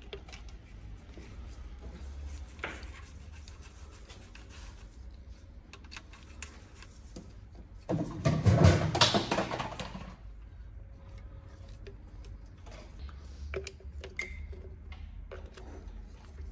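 A loose steel engine chain clattering as it is handled, loudest for about two seconds near the middle, with light clicks and scraping of metal and plastic parts being fitted.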